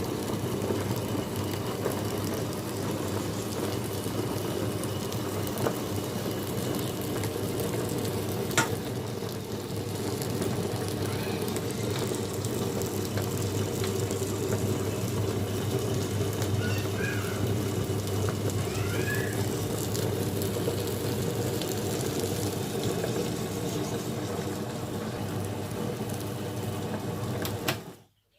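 Wonderchef Maxima wet grinder running as it grinds soaked rice and lentils into idli and dosa batter: a steady motor hum with an even churning noise, which cuts off near the end.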